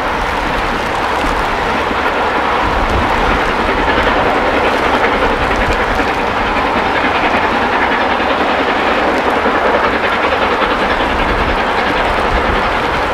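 Three-cylinder Peppercorn A1 Pacific steam locomotive 60163 Tornado hauling its train uphill, its exhaust heard from a distance as a steady, dense noise. Wind buffets the microphone throughout.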